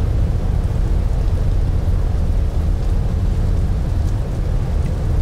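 Steady low rumble, loud and even, with no rhythm or breaks.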